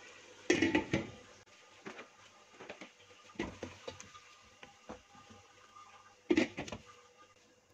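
Spatula stirring chicken curry in a metal cooking pot, with scattered scrapes and knocks against the pot. A glass pot lid is handled with a clatter about half a second in, and a second louder clatter of the spatula on the pot comes near the end.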